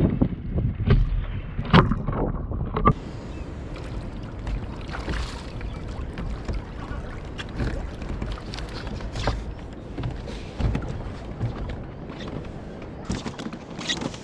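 Water and wind noise around a Hobie Tandem Island sailing kayak, with knocks and clicks from gear on the hull, loudest and most frequent in the first three seconds.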